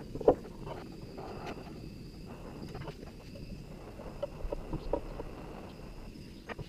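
Gas torch burning with a steady low hiss while a metal tool clicks and scrapes against the hot metal: one sharp click about a quarter of a second in, and a run of light taps a little past the middle.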